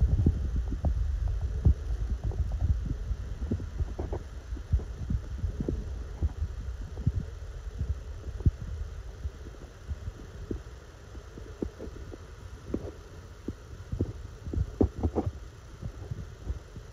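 Waterproof phone case creaking and clicking in irregular short creaks over a low rumble, louder at the start and again near the end.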